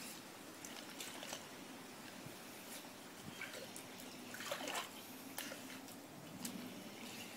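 Small splashes and drips of pool water as a dog dips its muzzle into the water, reaching for a floating ball, with a louder splash about halfway through.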